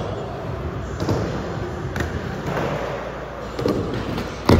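Skateboard wheels rolling over a smooth indoor skatepark surface, with a few light clicks, then one sharp, loud clack of a board striking the ground near the end.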